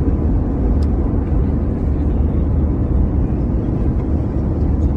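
Steady low rumble of a passenger airliner's cabin noise, an even, unchanging drone of engines and airflow.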